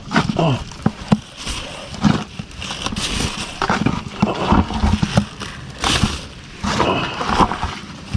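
Thin plastic carrier bag holding freshly caught fish rustling and crinkling in irregular bursts as it is handled.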